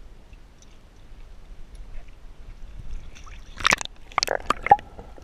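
Water splashing and sloshing against an action camera's waterproof housing as it is dipped below the surface beside a sailboat: a low steady rumble of moving water, then a cluster of sharp splashes about three and a half seconds in.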